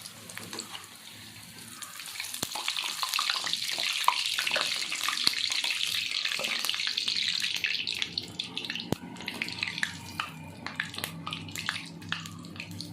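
Bread round deep-frying in hot oil in a kadai: a sizzling hiss that swells a couple of seconds in, then thins into scattered crackles and pops after about eight seconds.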